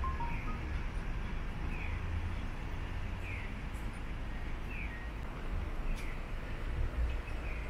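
Outdoor town ambience: a steady low rumble with short, falling chirps that repeat about every second and a half.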